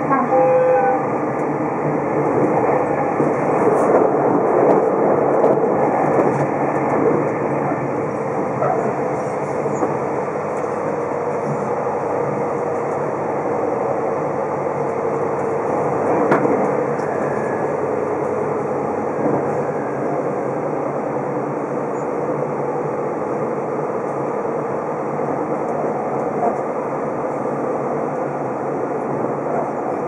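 Steady running noise heard inside the passenger cabin of a JR Hokkaido Super Kamui limited express electric train at speed, with a faint steady hum. There is one sharp click about halfway through.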